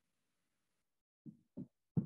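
Near silence, then three short dull thumps in quick succession in the second half, the last the loudest.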